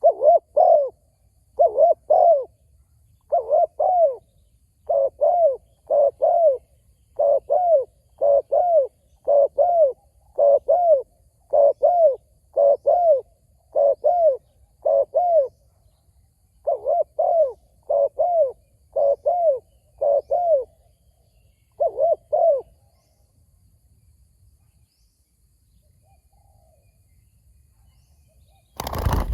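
Spotted dove cooing, a steady run of paired arching coos about one pair a second that stops some 22 seconds in. One brief sharp knock near the end.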